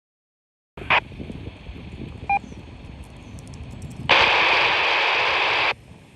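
Two-way radio receiver on an amateur radio net: the squelch opens with a click about a second in onto a weak, hissy signal, a short beep sounds partway through, then a loud burst of static hiss lasts about a second and a half before the signal drops and the squelch closes at the end.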